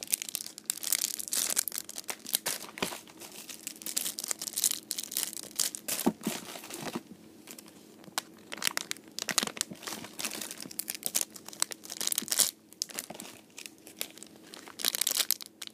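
Plastic packaging crinkling in irregular bursts as packaged squishy toys are handled.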